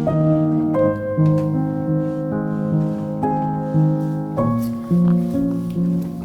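Background music: a gentle piano melody with notes that are held and overlap, at a slow and even pace.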